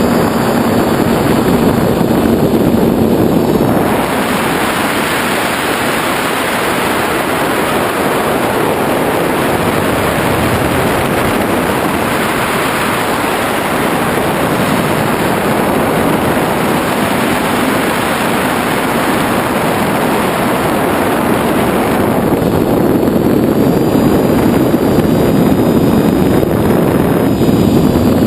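TBS Discovery quadcopter's motors and propellers running in flight, heard through heavy wind rush on the onboard camera's microphone. The wind noise is strongest through the middle, and the propeller hum comes through more plainly near the start and the end.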